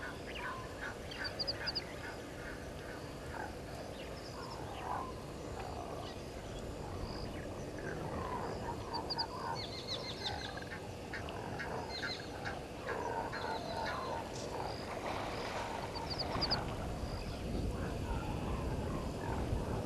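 Birds calling around a waterhole: many short honking calls mixed with quick high chirping trills. A rushing noise grows louder over the last few seconds.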